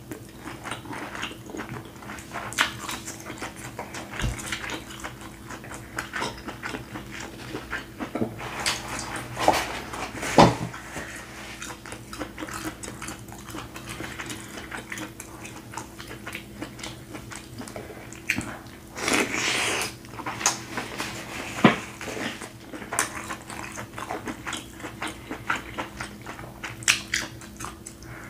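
Close-up chewing and wet mouth smacks of someone eating sauce-coated king crab meat, with scattered clicks and a longer noisy burst about 19 seconds in. A faint steady hum runs underneath.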